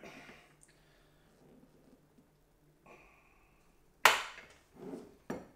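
Wire cheese slicer drawn through a hard block of aged Comté, quiet at first, then the freshly tightened wire snaps with a sudden loud crack about four seconds in. A second, smaller click follows near the end.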